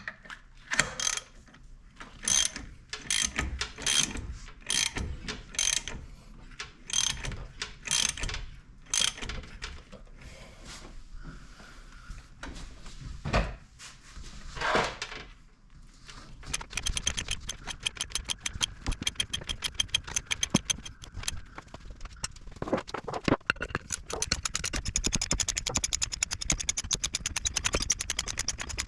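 Hand ratchet clicking as it turns the harmonic balancer puller to draw the balancer off the engine's crankshaft. It clicks in even strokes a little under a second apart for the first third, then settles into a long run of fast, continuous clicking from about the middle on.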